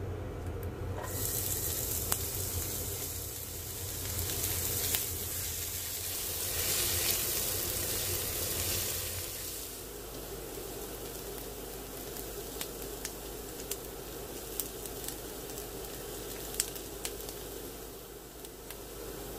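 Chopped onion sizzling in hot oil in a nonstick pan, stirred with a silicone spatula as it sautés. The sizzle starts about a second in and is strongest for the first several seconds, then settles to a softer sizzle with light ticks and taps from the spatula. A low hum stops about halfway through.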